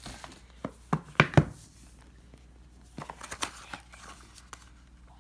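Boxes and packaging being handled: a few sharp knocks and taps, loudest about a second in, then rustling and lighter taps around three seconds in as a paper shopping bag is handled.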